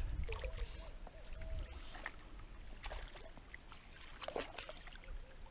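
Lake water lapping and sloshing against a float tube, with a few short sharp splashes about four seconds in as a small hooked bass is played at the surface.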